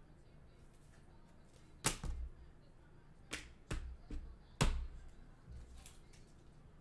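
A few sharp taps and knocks of things being handled and set down on a tabletop: one about two seconds in, then a quick cluster of several more a second or so later.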